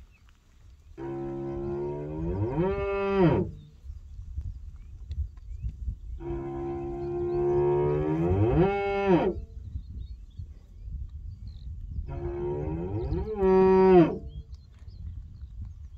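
Hereford cattle mooing: three long moos about five seconds apart, each one bending up in pitch near its end before breaking off.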